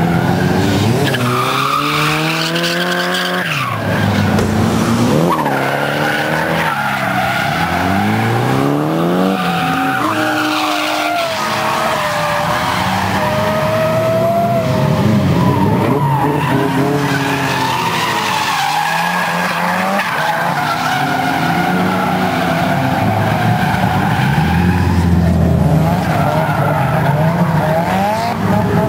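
Drift cars' engines revving hard and falling back over and over as the cars slide sideways through the corners. Tyres squeal throughout, with one long held squeal in the middle.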